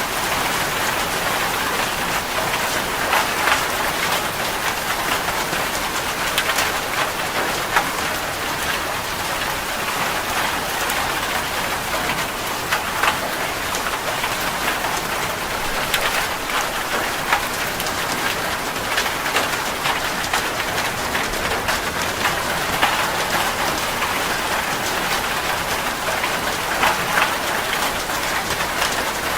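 Steady rain falling and pattering on surfaces, with many individual drop hits standing out from the even hiss.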